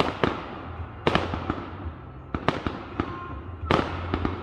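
Aerial fireworks bursting overhead: four loud bangs about a second apart, with smaller pops between, each trailing off in an echo.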